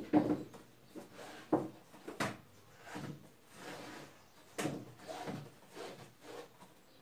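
Stretchy fabric cover being worked down over a party-decoration cylinder by hand: rubbing and scraping, with a few sharp knocks of the cylinder being bumped and shifted.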